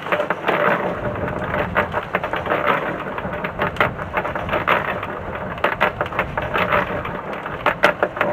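Small electric cement mixer running, its drum turning a dry load of gravel ballast and cement, which tumbles with a dense rattle of sharp clicks over the motor's hum. A few louder clatters come near the end.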